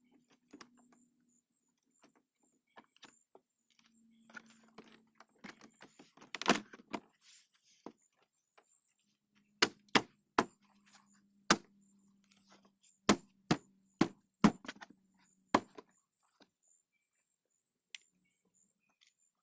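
Sharp knocks and snaps of plastic car door trim being fitted and pressed back into place: one loud knock about six seconds in, then a run of about ten snaps between ten and sixteen seconds in.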